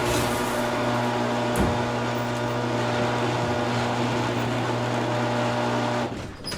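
Motorised garage door closing: a steady motor hum with a rattling mechanical noise, which stops near the end and trails away.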